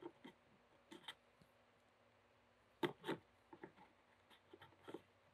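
Faint clicks and small knocks of a plastic oil filler cap being fitted and twisted onto a Porsche Cayman's oil filler neck. The loudest is a pair of clicks about three seconds in.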